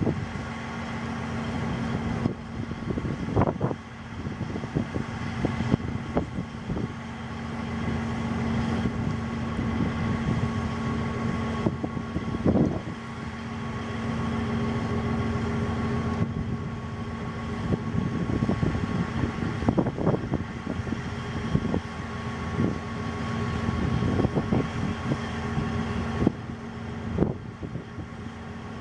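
Diesel engine of a harbour tug running steadily, a low, even hum, with a few scattered knocks.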